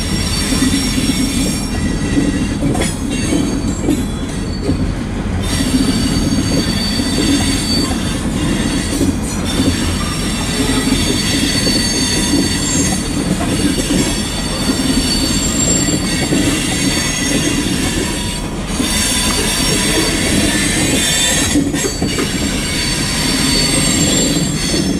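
Freight train tank cars rolling past, with a steady low rumble and clatter of steel wheels on rail. Thin high squeals from the wheels come and go, strongest in the second half.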